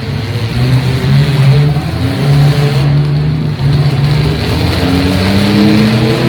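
Demolition derby cars' engines running loud and unmuffled-sounding, one revving up, its pitch climbing over the last second or so.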